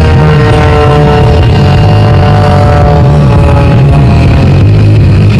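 Single-engine aerobatic plane's piston engine and propeller running at high power, several of its tones sliding slowly down in pitch, with music mixed in.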